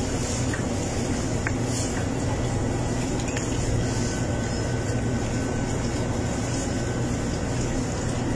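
Steady hum and hiss of air conditioning, with a few faint clicks.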